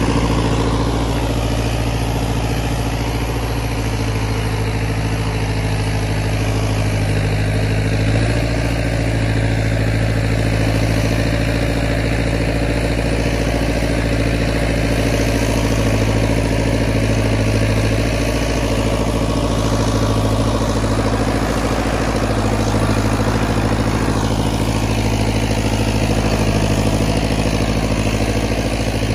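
Turbo diesel engine of a 914 Turbo tractor running steadily under load while it pulls a subsoiler through the ground.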